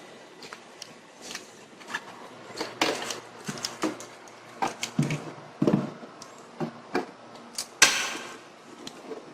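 Irregular clicks, knocks and brief rustles of a monitor and its packaging being handled during unboxing, with a louder scrape or rustle near the end.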